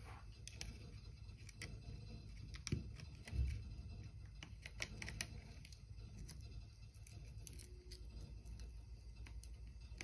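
Faint, scattered clicks and light scrapes of small repair tools on an iPhone's chassis and internal parts, with two soft knocks about three seconds in.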